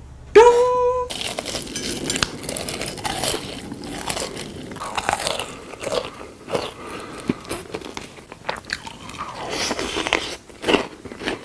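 Close-miked eating sounds: crunchy food being bitten and chewed, with many short sharp crunches.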